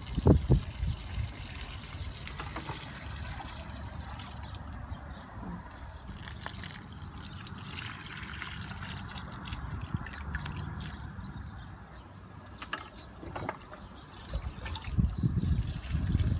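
Water sprinkling from a small plastic toy watering can's rose onto wet soil and potted plants, a steady soft trickle and patter. A couple of brief knocks come just after the start.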